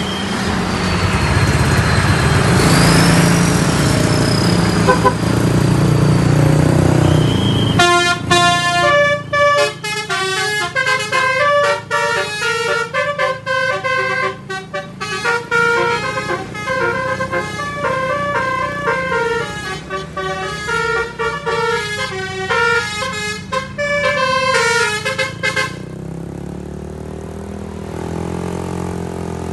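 Bus engine and road noise for the first several seconds. Then a bus's telolet horn, a set of electric air-horn trumpets, plays a stepping multi-note tune for about eighteen seconds and stops, leaving the engine running.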